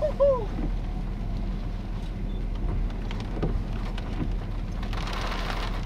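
Steady low hum of a stopped vehicle's running engine, with a light patter of rain. Near the end comes a brief rushing hiss.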